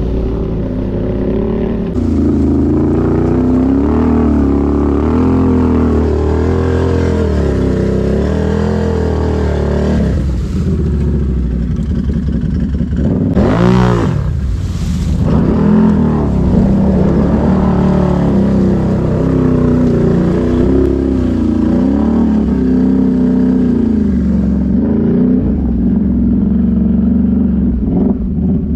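Can-Am ATV engine running hard through deep water, its pitch rising and falling with the throttle. There is a brief sharp rise and fall in pitch about halfway through.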